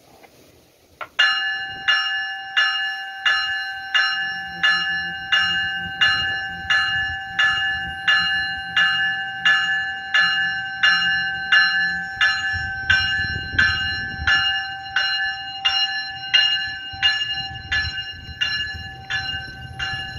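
A GO Transit train's bell ringing steadily at about three strikes every two seconds as the train departs the station. A low rumble of the train starting to roll sits under it.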